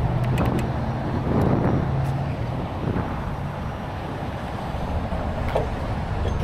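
Freeway traffic rushing past, with several vehicles swelling by in the first three seconds over a low steady engine hum.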